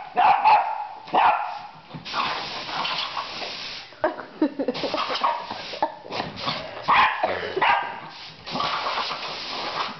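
Havanese dog barking and yipping excitedly at an air compressor's blow nozzle, with bursts of hissing air lasting a second or two each. The barks are loudest in the first second and about seven seconds in.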